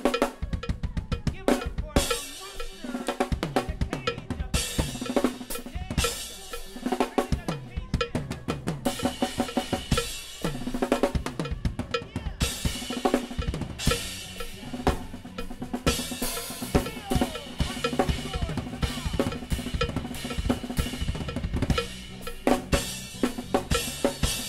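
Acoustic drum kit played live in a fast drum solo: rapid snare and bass drum strokes with tom fills and cymbals.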